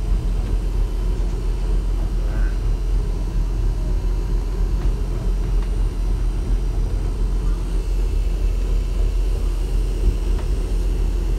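Steady low rumble of a motor boat's engine under way, mixed with wind and water noise, heard from inside the wheelhouse.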